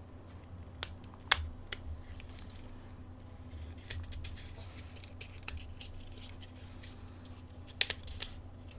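Small sharp clicks and light scraping of a mobile phone's plastic casing and parts being handled and taken apart by hand, with a few louder clicks about a second in and two more near the end.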